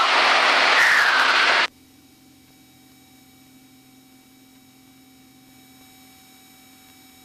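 Aircraft intercom audio: a loud rushing noise from the open headset microphone cuts off sharply about a second and a half in. What remains is a faint steady electronic hum with several thin high tones.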